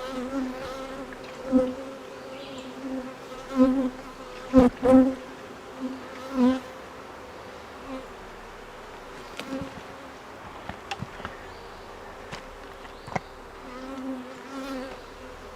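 Honeybees buzzing close by, a steady hum that swells and fades again and again as bees fly past. A few short clicks sound over it.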